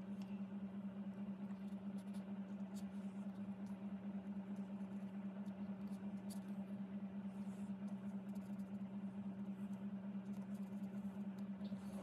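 A steady low hum, with faint scratches and ticks of a bamboo pen on card as ink strokes and dots are laid down.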